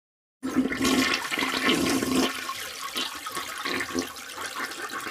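Storm sound effect: a rushing, water-like noise that starts suddenly about half a second in and eases off a little after about two seconds.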